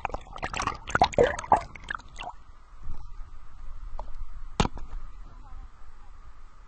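Water sloshing and bubbling against a waterproof action camera held at the surface, a dense splashy crackle that stops about two seconds in as the camera lifts clear. After that there is only a faint steady hum, broken once by a single sharp drip-like click.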